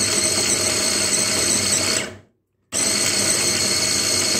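Arçelik hand blender motor driving its chopper-bowl blade through frozen fruit, milk and ice cream, running with a steady high whine. It is switched off about two seconds in and winds down, then starts again at full speed about half a second later.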